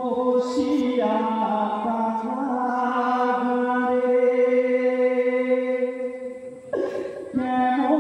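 Men singing a Bengali marsiya, a mourning chant about Zainal Abedin, in long held notes with a brief break near the end.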